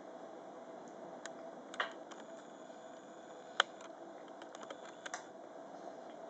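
A handful of soft, scattered clicks and small wet mouth sounds from a baby being spoon-fed puree, the sharpest click about halfway through, over a steady faint room hum.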